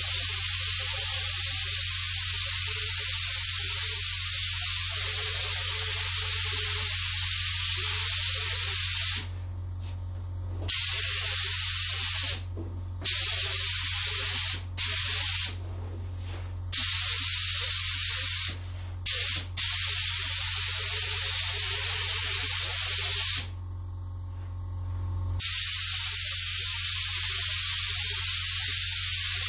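Paint spray gun spraying, a loud steady hiss that breaks off several times for a moment to about two seconds and then starts again. A steady low hum runs underneath.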